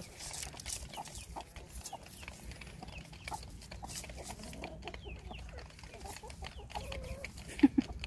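A hen scratching and pecking at dry ground and leaf litter, a patter of small scratches and ticks, with soft clucking that comes louder twice near the end.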